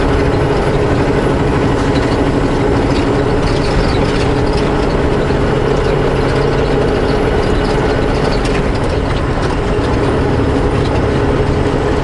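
Semi truck's diesel engine running steadily under way, heard from inside the cab: a low drone with a held hum, mixed with road noise.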